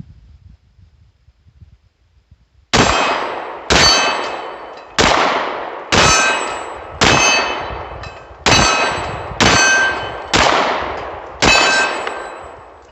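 SCCY DVG-1 9mm pistol fired nine times in an uneven string about a second apart, starting a few seconds in. Each shot is followed by a long ringing tail, like a steel target being struck. The gun fires each round without a stoppage.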